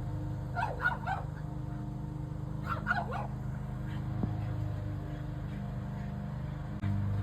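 A dog giving short, high whines or yips in two quick clusters, about a second in and again near three seconds, over a steady low hum.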